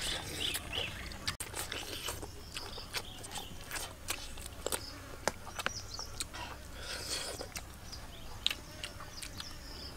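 Eating by hand: chewing and lip smacks, with many small irregular clicks as pieces of chicken and grilled fish are pulled apart, over a faint buzz of insects.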